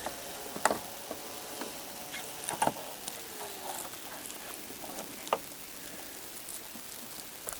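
A few sharp clicks and knocks, about one every two or three seconds, of car body parts being handled while fitting the rear bumper and taillight, over a steady hiss.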